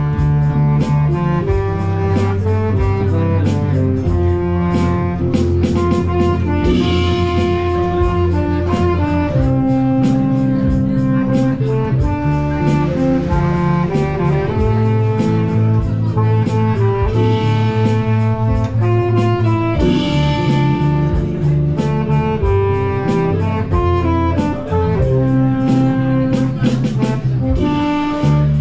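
Small live band playing an up-tempo tune: keyboard and bass guitar carry the melody and bass line over a steady beat.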